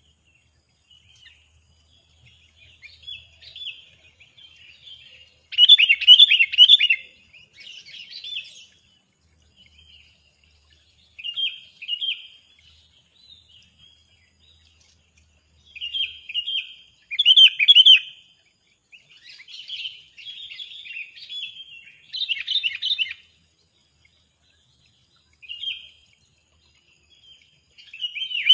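Small songbirds chirping and twittering in short, repeated bursts with brief pauses between them, loudest about six seconds in and again about seventeen seconds in.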